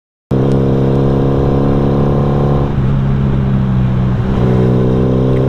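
Honda Revo single-cylinder motorcycle engine running steadily on the road, cutting in abruptly just after the start; its note turns rougher for a second or so around three seconds in, then settles again.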